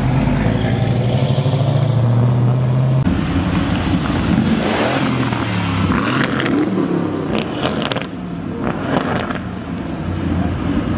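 Car engines at low speed. A deep, steady engine note holds for about three seconds, then changes abruptly to a different engine that revs up around four to five seconds in as the car pulls away.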